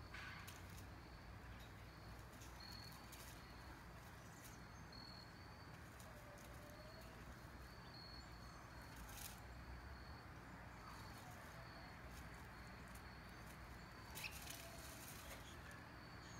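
Near-silent outdoor ambience. Faint high chirps repeat irregularly, about once a second, with a few faint distant bird calls and a few soft clicks.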